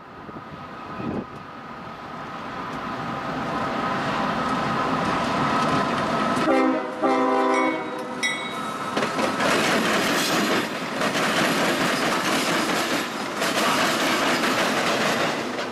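CSX freight train with two diesel locomotives approaching and passing, the engine noise growing louder as it nears. About six and a half seconds in the locomotive horn sounds in a few short blasts, then the autorack cars clatter by, their wheels clicking over the rail joints.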